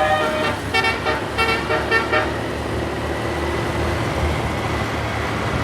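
A bus's telolet basuri musical air horn playing a quick run of short, chopped notes, which stops a little over two seconds in. After that only a steady low vehicle rumble remains.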